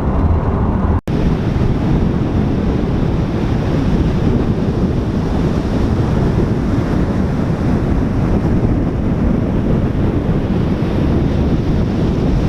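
Steady rushing wind on the microphone mixed with ocean surf, with a sudden gap about a second in where the sound cuts out for an instant.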